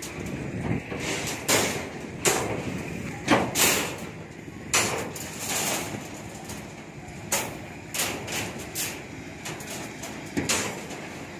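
Long steel reinforcing bar being dragged and laid across a rebar mesh, clanking and scraping against the crossing bars in a dozen or so irregular knocks, some of them ringing briefly.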